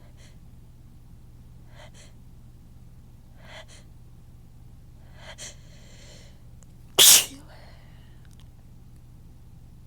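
A big sneeze buildup: four short, catching inhales a second or two apart, each longer than the last, then one loud sneeze about seven seconds in.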